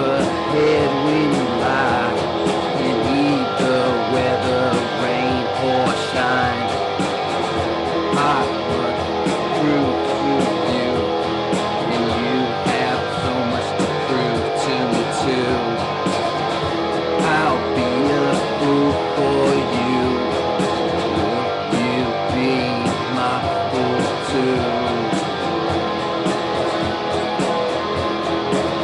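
Guitar music, with strummed guitar playing steadily throughout.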